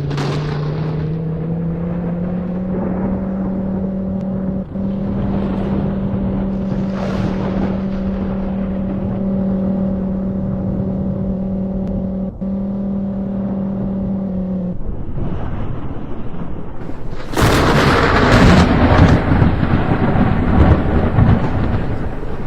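Outdoor tornado warning siren winding up in pitch and then holding one steady wail, which cuts off about two-thirds of the way in. A couple of seconds later a loud rumbling noise sets in and runs to the end.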